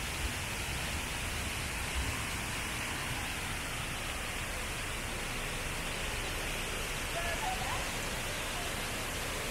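Steady rushing, hissing noise with faint voices in the background and a low thump about two seconds in.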